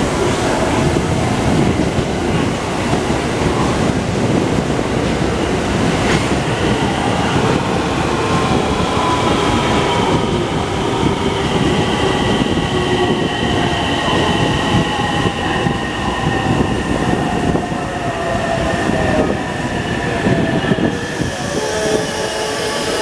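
Electric commuter train rolling into a station platform and slowing, its wheels rumbling on the rails with a clank about six seconds in, while a motor whine of several tones falls slowly in pitch as it brakes.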